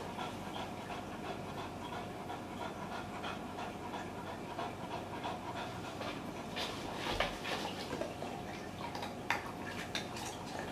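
Chow chow puppy panting steadily, with a few sharp clicks about two thirds of the way through.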